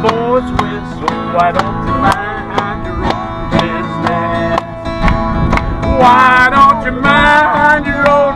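Acoustic guitar strummed in a country-style rhythm while a man sings, with others singing along.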